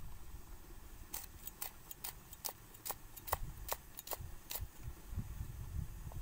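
Steel cleaver chopping red chillies on a round wooden chopping board: a run of sharp chops, about two to three a second, starting about a second in and stopping after about four and a half seconds.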